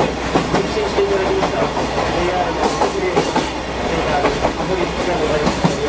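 Sagano scenic torokko train running on its track: a steady rolling rumble with the clickety-clack of wheels over rail joints.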